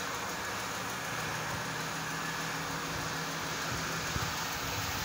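A steady mechanical drone with a low hum, like an engine idling, unchanging throughout.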